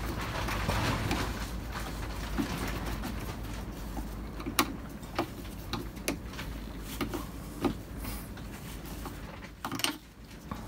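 Handling rustle, then a series of irregular sharp metal clicks and ticks as a small screwdriver works a hose clamp on a fuel hose.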